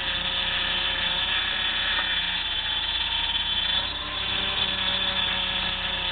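Chrysler PT Cruiser engine running with a steady high whine from the power steering pump, the sign of low power steering fluid.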